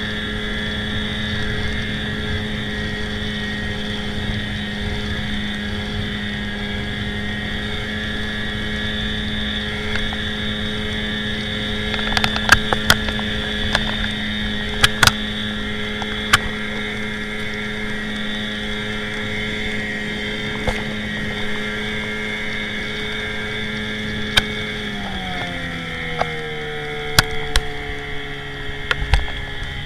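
Johnson Seahorse 15 hp outboard motor running steadily at speed, driving a small inflatable boat, with a few sharp knocks from about twelve seconds in. Near the end the engine is throttled back and its pitch falls as the boat slows.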